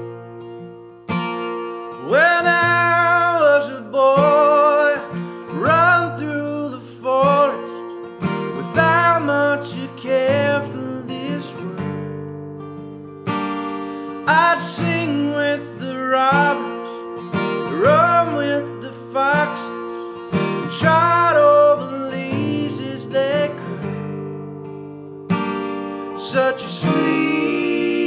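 Acoustic country-folk band music: a strummed acoustic guitar with deep bass notes underneath, and a man singing a slow melody with vibrato.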